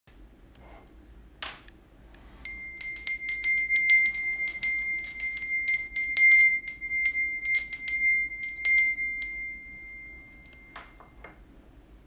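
Small silver-coloured metal hand bell shaken by its handle, its clapper striking rapidly for about seven seconds to give a bright ring on one clear high note. The ring then dies away, and there are a couple of light knocks near the end as the bell is set down on the table.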